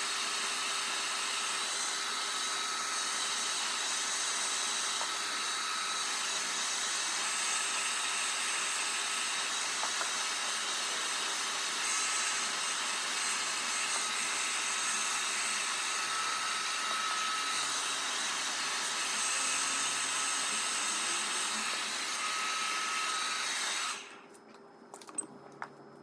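Hair dryer running steadily: an even rush of air with a constant whir. It cuts off abruptly about two seconds before the end, leaving only faint small clicks and rustles.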